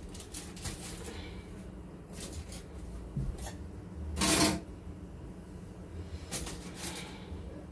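Kitchen handling sounds at the counter: scattered light clicks and rustles as food and foil are handled, with one louder rustle of about half a second around four seconds in, over a low steady hum.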